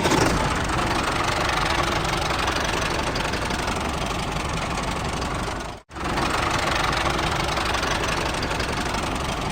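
An engine running steadily with a dense rumbling noise, cut off for an instant about six seconds in and then picking up again.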